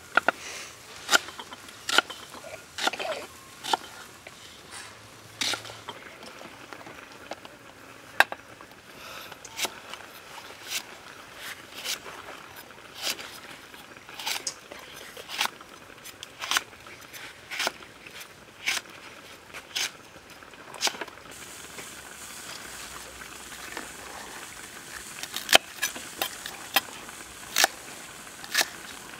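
Kitchen knife chopping onion, red chilies and spring onions on a round wooden chopping block: sharp knocks of the blade hitting the board about once a second, with a louder, quicker run of cuts near the end.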